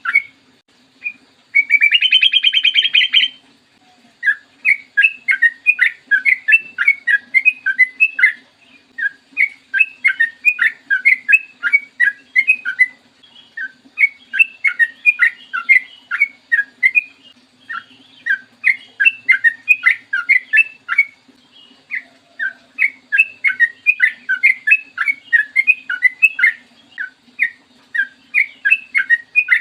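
Yellow-vented bulbul (trucukan) singing long rapid runs of short, bright whistled notes, several a second, in bouts of a few seconds each. About two seconds in comes a louder, harsher buzzy call lasting about a second. A faint steady low hum sits underneath.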